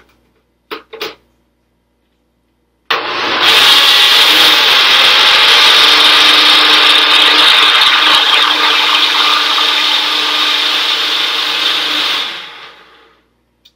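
Personal push-down blender running: its motor starts abruptly with the travel bottle pressed onto the base, blends a smoothie steadily for about nine seconds, then winds down as the bottle is released. Two short knocks come about a second in, before the motor starts.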